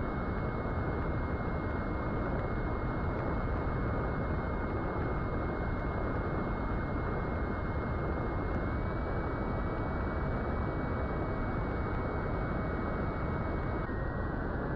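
Onboard audio of a small electric FPV plane in flight: a steady rush of air with a thin, steady whine from its Brotherhobby Avenger 2808 brushless motor and propeller at low throttle. The whine shifts slightly in pitch about two-thirds of the way through and again near the end.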